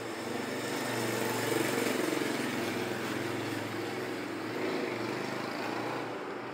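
A motor vehicle's engine running close by, swelling during the first couple of seconds and then slowly easing off, as if it is passing.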